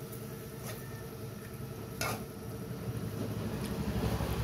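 Pork pieces sizzling in a nonstick frying pan while a slotted spatula stirs them, with a few sharp clicks of the spatula against the pan, the loudest about two seconds in. A low rumble grows louder near the end.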